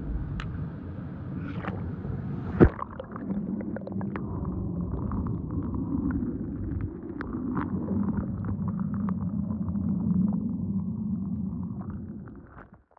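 Muffled rumble of churning, bubbling water heard with the microphone underwater, sprinkled with small clicks. One sharp knock about two and a half seconds in is the loudest sound.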